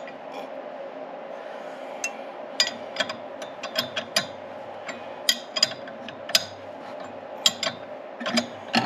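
Irregular sharp metallic clicks and clinks of a wrench and valve gear as a Yamaha G2 golf cart engine is turned over by hand to check the valves, over a steady background hum.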